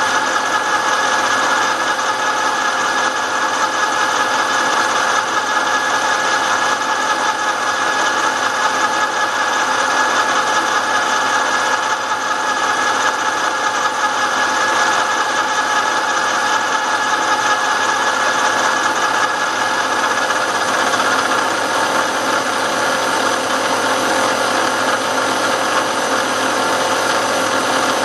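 End mill on a milling machine cutting 316 stainless steel: a steady, unbroken machining noise with a couple of held high tones running through it.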